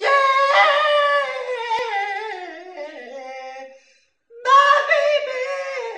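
A young man's voice singing two long, high drawn-out notes, each sliding down in pitch, the second starting about four seconds in.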